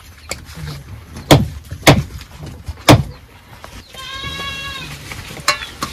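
Three loud, sharp knocks, then a single steady bleat from a farm animal about four seconds in.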